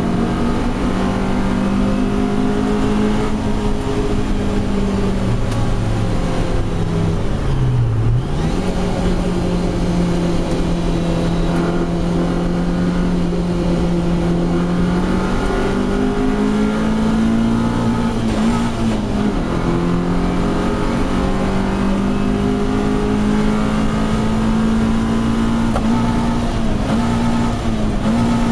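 Lotus Elise engine heard from inside the cabin, running at a steady, fairly constant pitch on track. About eight seconds in the revs briefly drop sharply and climb back, with smaller wavers in pitch later on.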